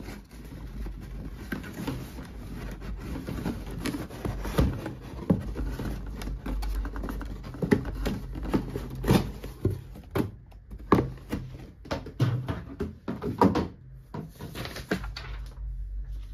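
Cardboard rubbing and scraping as a shoebox is worked out of a tight-fitting cardboard shipping box, with many sharp knocks and bumps of the boxes against each other and the wooden table.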